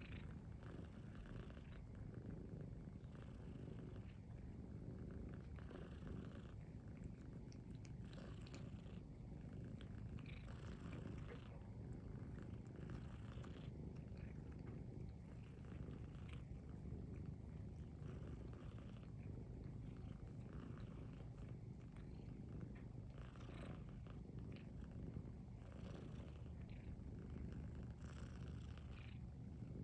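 Domestic cats purring in a steady, continuous low rumble while a young tabby cat suckles on an adult grey-and-white cat.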